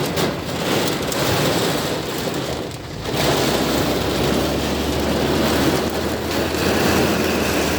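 Heavy rain pouring hard on a car, a dense steady wash of noise heard from inside the cabin, with a brief lull just before three seconds in. A low steady hum sits underneath from about the middle on.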